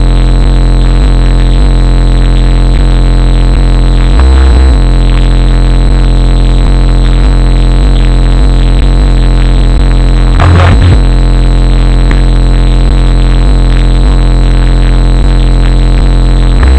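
Bass-heavy music played at very high volume through a 15-inch DB Drive Okur K9 car subwoofer, so loud the recording is distorted. A deep bass line runs over a steady beat, with three harder bass hits about six seconds apart.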